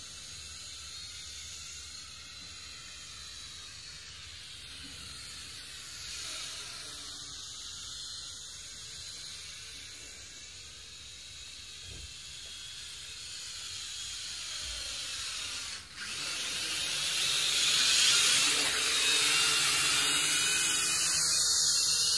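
Toy quadcopter's small electric motors and propellers whining in flight, the pitch wavering up and down as the throttle changes, growing louder about two-thirds of the way through.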